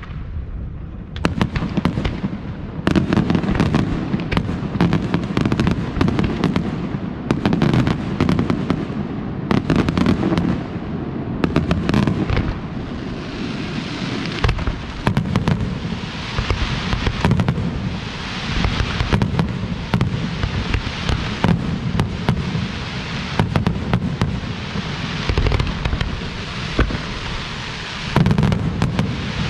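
Fireworks display: a rapid barrage of shell bursts and bangs, then from about halfway a steady high hiss under scattered bangs, with a heavier cluster of bangs near the end.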